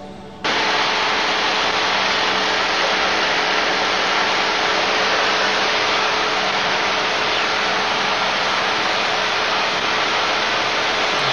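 Airflow rushing over the exterior camera under a Van's RV-10 in cruise flight: a loud, even hiss with the steady drone of the aircraft's engine and propeller beneath it. It cuts in abruptly about half a second in.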